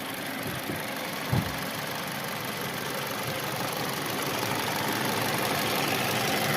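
2019 Kia Sportage engine running with a knock from inside the engine, the fault being recorded. A single thump about a second and a half in.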